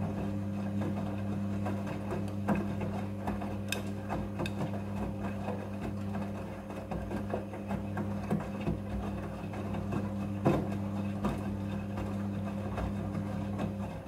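Midea front-loading washing machine running: a steady motor hum with many small irregular clicks and knocks, one louder knock about ten seconds in, and the hum cutting off at the end.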